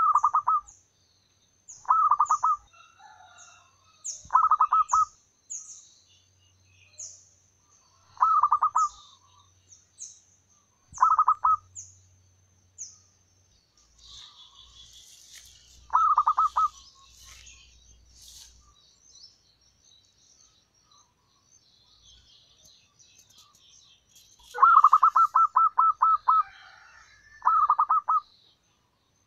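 Zebra dove cooing: short bursts of rapid staccato notes every couple of seconds, with a longer run of notes near the end. Another small bird repeats a thin high chirp in the background through the first half.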